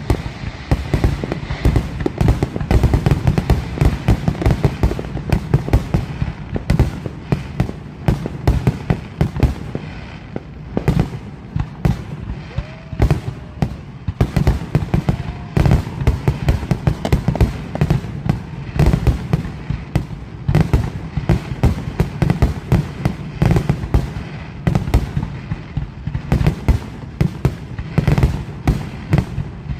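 Fireworks display: aerial shells bursting and crackling in quick, overlapping succession, several bangs a second with deep booms among them.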